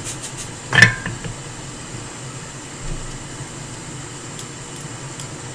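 Steady fan whirr of bench equipment, with one sharp clink about a second in and a softer knock near the middle.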